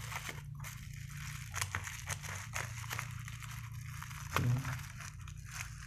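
Flash drive packaging being handled, crinkling and clicking in scattered short crackles over a steady low hum.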